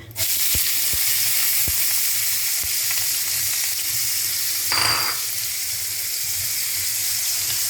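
Chopped onion and garlic dropped into hot oil in a pan, bursting into a sizzle at once and then frying steadily. There are a few light utensil taps early on and a short scrape about five seconds in.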